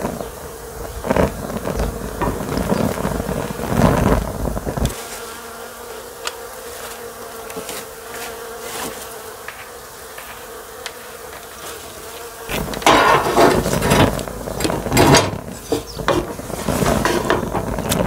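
A flying insect buzzing steadily close by, with a wooden spatula knocking and scraping in a metal pan of wet chopped wild onions. Wind rumbles on the microphone in the first few seconds and again from about two-thirds of the way in, when a run of louder knocks and clatter comes as the onions are lifted out.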